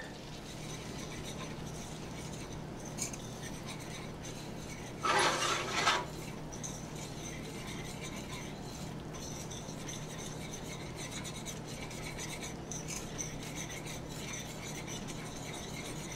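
Wire whisk working flour into hot melted butter in a pan to make a roux: steady soft scraping and stirring, with a louder burst of scraping lasting about a second some five seconds in.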